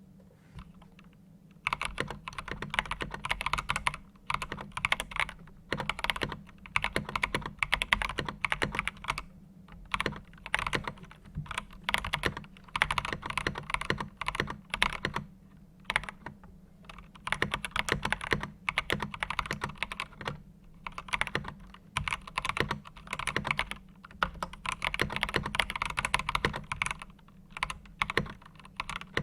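Typing on an Attack Shark K75 mechanical keyboard fitted with PBT keycaps: rapid key presses clacking in runs of a second or few, with short pauses between runs. A steady low hum sits underneath.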